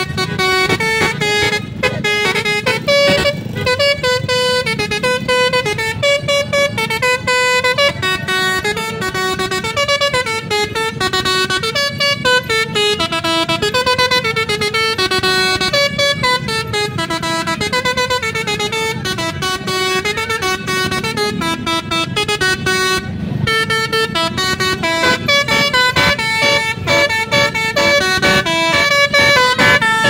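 A tour bus's telolet basuri horn, a multi-tone melodic horn, plays a tune without a break, its notes stepping up and down several times a second over a low rumble of engines.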